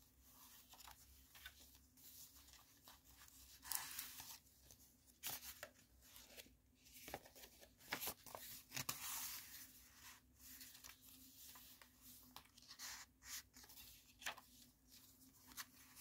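Paper and card pages of a handmade junk journal rustling and scraping as they are turned and pulled from pockets: soft, irregular rustles, the strongest about four seconds in and again from about seven to nine seconds in. A faint steady hum sits underneath.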